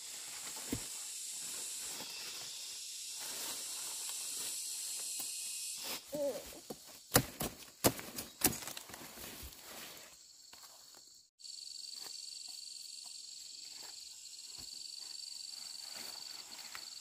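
Insects droning in the background, with a handful of sharp clicks and snaps and a short chirping call about halfway through. After a sudden break comes a steady, high-pitched insect trill.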